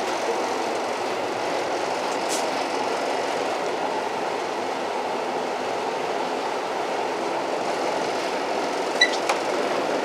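An old train running, a steady even noise with one brief high squeak a couple of seconds in and a few sharp clicks near the end.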